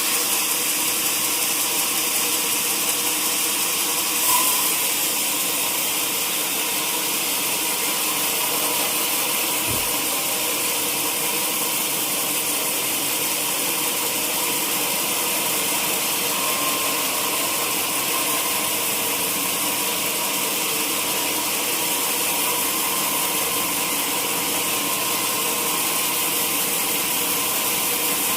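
Sawmill machinery running steadily, a constant hissing machine noise with a few steady hum tones underneath. A brief louder knock about four seconds in.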